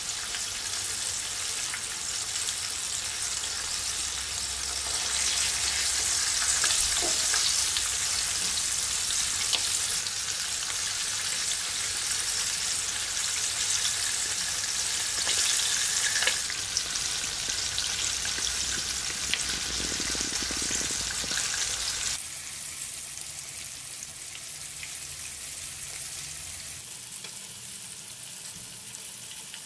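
Hot oil sizzling steadily around a whole sea bream, cut in two, frying in a pan, with a few sharp pops. About two-thirds of the way through the sizzle turns quieter and duller.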